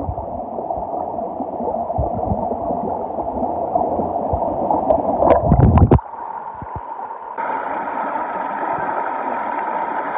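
Muffled gurgling and rushing river water, as heard with the drone down in the river. It cuts off suddenly about six seconds in, and from about seven and a half seconds a steadier hiss with a faint high tone takes over.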